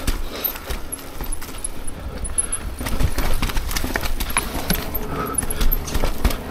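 Mountain bike riding down a rough downhill trail, with an irregular clatter of tyres, chain and frame knocking over rocks and roots over a steady low rumble.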